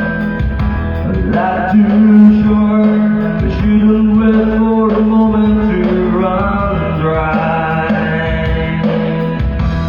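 Music: a male voice singing over guitar and band accompaniment.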